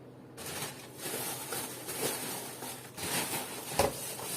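Plastic packaging rustling and crinkling as it is handled, with small clicks and a single light knock near the end.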